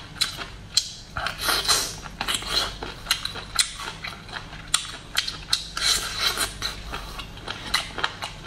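Close-miked chewing of cooked octopus tentacle: an irregular run of sharp, wet mouth clicks and smacks several times a second, with denser chewing stretches about a second and a half in and again about six seconds in.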